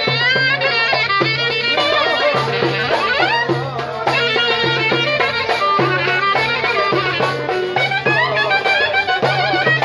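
Lively traditional Turkish-style music: a fast, ornamented melody that bends and trills over a steady, repeating low beat.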